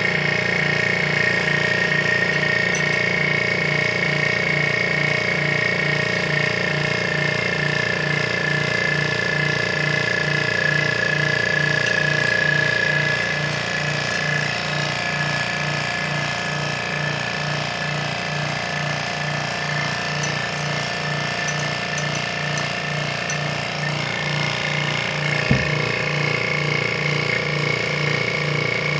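HVAC vacuum pump running steadily, drawing down an air-conditioning system through the gauge hoses to evacuate it and check it for leaks; it gives a steady whine over a pulsing hum, eases slightly about halfway through, and there is a single knock near the end.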